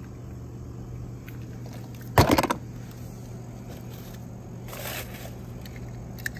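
Hands handling small toys and props: a short clatter of clicks about two seconds in and a brief rustle near five seconds, over a steady low hum.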